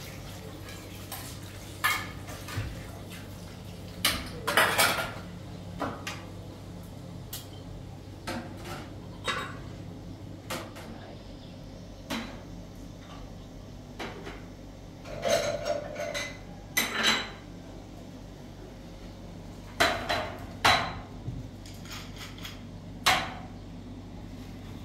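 Metal objects clinking and clattering irregularly as they are handled, in scattered bunches of sharp knocks with a short ring, over a steady low hum.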